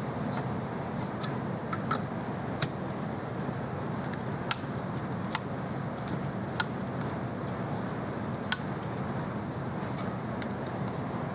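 Steady background noise with a handful of sharp, isolated clicks a second or two apart.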